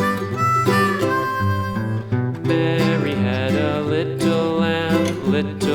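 Background music: a country-style tune on harmonica and acoustic guitar.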